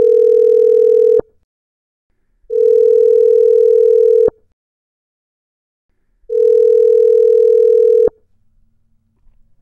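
Phone ringing tone of an outgoing call while it waits to be answered: three long, steady, loud beeps, each just under two seconds, with a short click as each one cuts off.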